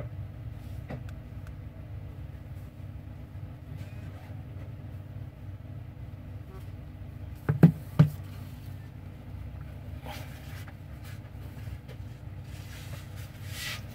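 Steady low background hum, with two sharp knocks about half a second apart midway through as a smartphone is set down on a table.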